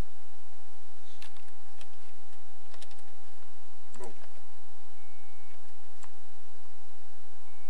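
A handful of separate sharp clicks from a computer mouse and keyboard, about five over several seconds, over a steady faint electrical hum.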